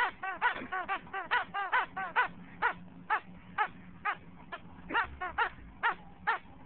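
A squeaky toy frog squeaking again and again as a bullmastiff chews it: short high squeaks that each rise and fall in pitch, coming quickly at first and then slowing to about two a second.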